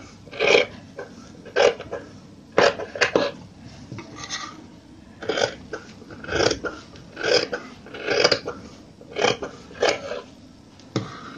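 Tailoring scissors cutting through doubled fabric to make a long bias strip, a short crunching snip roughly once a second.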